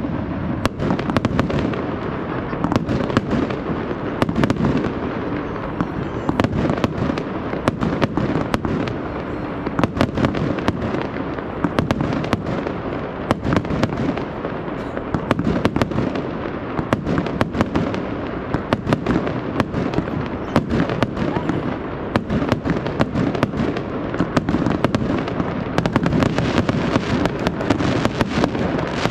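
Aerial fireworks display: shells and rockets bursting in quick succession, many sharp bangs over a continuous rumble and crackle.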